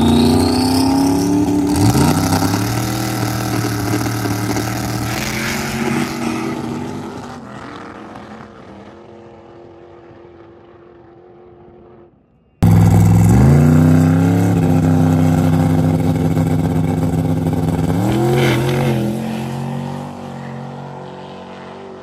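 Drag cars launching side by side and accelerating hard away, their engines climbing in pitch through a gear change about two seconds in, then fading as they run off down the track. About halfway through there is a sudden cut to a second launch: engines again climbing, shifting, and fading into the distance.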